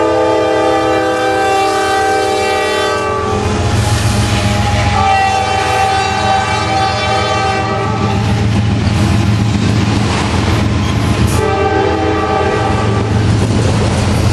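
Diesel freight locomotive's multi-note air horn sounding three blasts, the crossing signal: the first ending about three seconds in, a second of about three seconds, and a shorter one near the end. Underneath, the locomotives' diesel engines rumble steadily and the autorack cars roll past.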